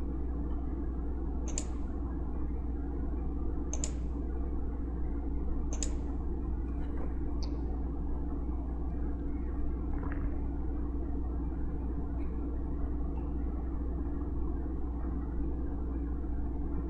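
Steady low electrical hum with room noise from a computer workstation, broken by a few sharp mouse clicks about two seconds apart in the first eight seconds.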